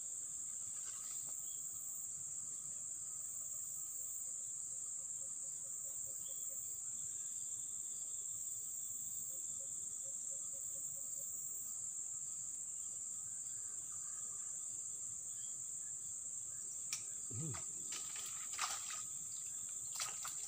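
A steady, high-pitched chorus of insects such as crickets or cicadas. Near the end a few sharp clicks and a short low thump break in as the fishing rod is raised to strike a hooked fish.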